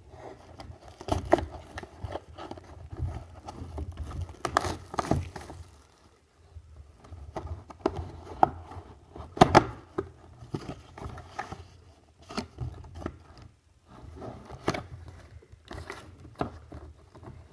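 Hands working at a sealed cardboard box of trading cards to get it open: irregular scraping, crinkling and clicks of the packaging, with several sharper snaps.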